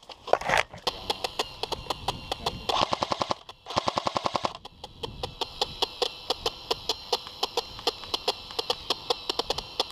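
Airsoft electric guns firing long fully automatic bursts: a fast, even stream of sharp clicks, with short breaks about three and a half and four and a half seconds in.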